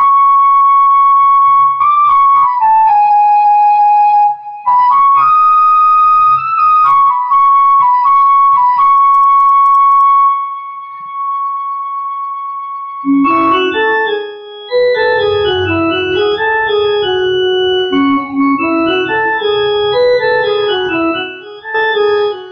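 Casio CTK-6300 electronic keyboard playing a Chhattisgarhi song melody note by note, in a voice whose held notes don't die away. A high phrase ends in a long held note that fades, then about thirteen seconds in a busier, lower phrase of quicker notes follows.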